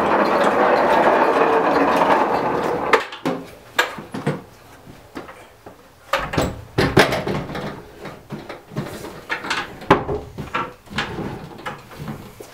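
Steel wheels of a Maxitrak Alice miniature locomotive rolling along the rails as it is pushed, a steady rattle that stops abruptly about three seconds in. After that come scattered knocks and clunks as a metal wagon is handled and set onto a wooden shelf.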